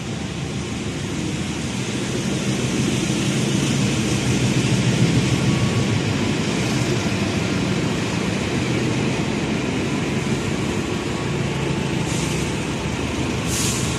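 Steady low rumble of an approaching train, a CC 206 diesel-electric locomotive, building over the first few seconds and then holding steady. A brief hiss comes about a second before the end.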